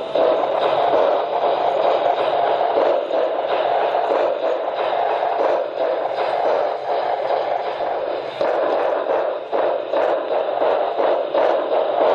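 Model train running on the track: a steady hum with frequent small clicks.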